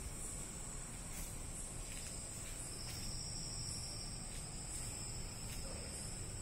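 Crickets trilling steadily in a high, continuous tone; a second, slightly lower-pitched trill joins about three seconds in.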